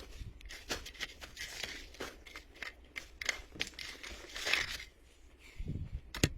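Irregular crinkling and rustling, with sharp clicks scattered through it and a brief lull near the end.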